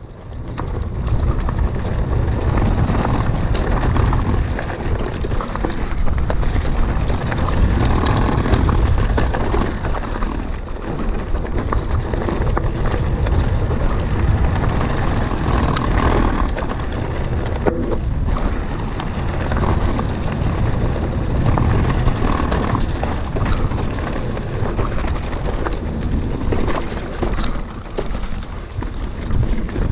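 Mountain bike descending a dirt forest trail at speed: a continuous rush of wind buffeting the microphone over the rolling noise of the tyres, with frequent small knocks and rattles from the bike over the bumps.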